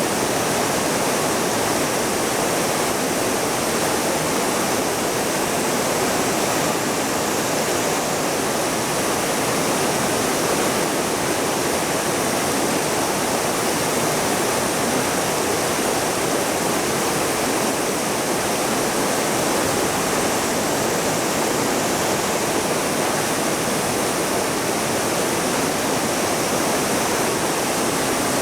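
Waterfall and rapids on a river, water pouring and rushing with a steady, unbroken roar.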